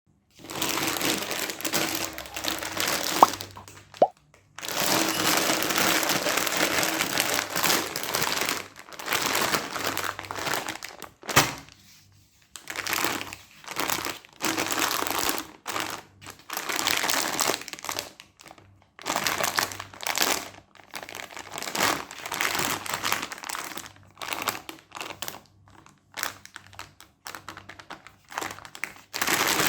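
Plastic candy wrappers crinkling in repeated bursts of a second or two as caramel fudge candies are handled and unwrapped, with a few sharp clicks among them.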